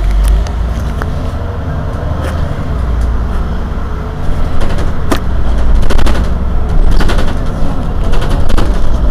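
Heuliez GX 327 city bus idling while stationary, its engine giving a loud, steady low drone. From about halfway through, a rapid crackle of sharp clicks rides over it.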